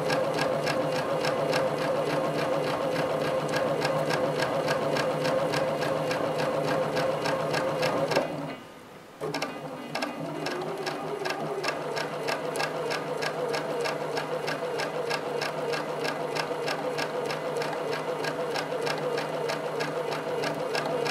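Sewing machine running steadily during free-motion quilting, the needle stitching in a rapid, even rhythm. It stops for about a second roughly eight seconds in, then starts up again and stitches on.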